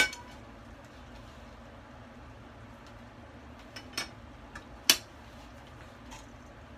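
A few sharp knocks and clicks of utensils against a saucepan and other kitchenware, the loudest right at the start and about five seconds in, over the low steady rush of a gas burner.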